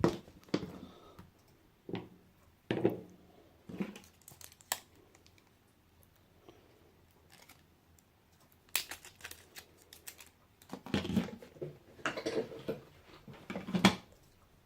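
Scattered clicks, taps and crinkling from hands working on a disassembled laptop battery pack and its cells, busier over the last few seconds.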